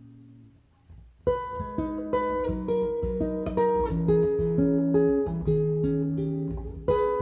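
Acoustic guitar music: a held chord fades away, and after a short near-silent gap a new passage of plucked notes begins about a second in.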